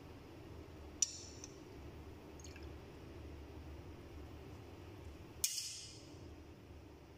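Metal tongs clinking against a ceramic bowl, with small liquid splashes, as a flour-coated chicken piece is dipped into the liquid in it. There is a sharp clink about a second in and a louder one about five and a half seconds in.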